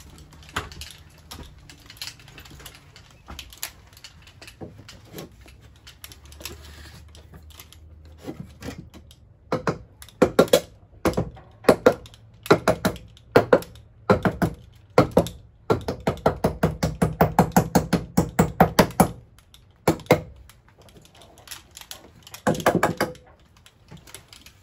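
Cordless driver sinking star-drive screws through a 2x4 block into a rafter: a series of short bursts starting about ten seconds in, one longer run of about three seconds, and a last burst or two near the end. Light handling noise before the driving starts.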